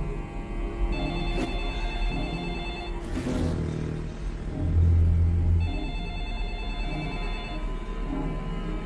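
Telephone ringing in bursts of about two seconds, twice. Between the rings a low drone swells, with a thin high whine over it.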